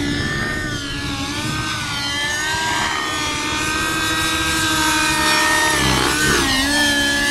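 Radio-controlled model helicopter in aerobatic flight: its engine and rotor make a steady pitched whine that wavers up and down, dipping and climbing back about six seconds in.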